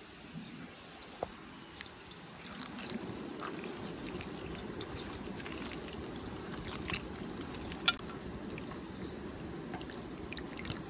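Steady rush of flowing river water, with scattered light clicks and one sharp click about eight seconds in.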